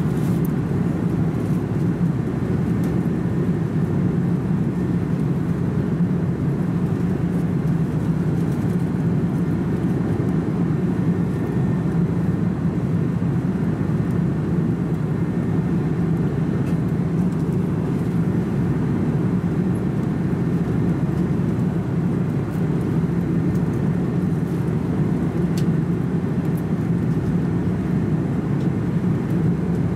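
Steady cabin noise of an Airbus A340-300 in cruise, heard from inside the economy cabin: an even, low rumble of airflow and the four engines that does not change.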